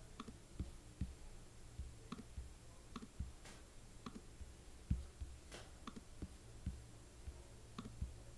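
Computer mouse clicking: short sharp clicks, roughly two a second at uneven spacing.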